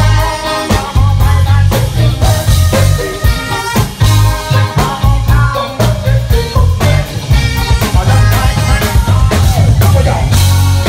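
Live funk band playing: a driving electric bass line and drum kit under a brass horn section with trumpet, plus keyboards.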